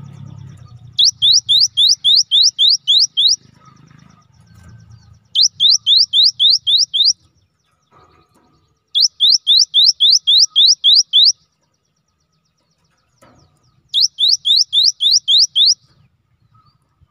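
Cinereous tit (gelatik batu) singing: four bursts of quick, clear rising whistles, about four a second and eight to ten to a burst, with short pauses between.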